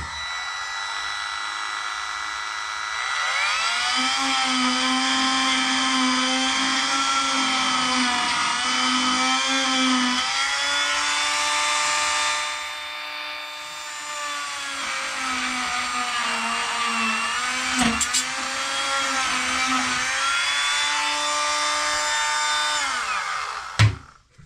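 Dremel rotary tool with a small sanding disc, whining at high speed as it grinds inside a tub faucet's valve-stem hole to clean buildup off the threads. It runs slower for the first few seconds, then speeds up with a rise in pitch. The pitch wavers as the disc bears on the metal, and the tool winds down near the end, followed by a sharp knock.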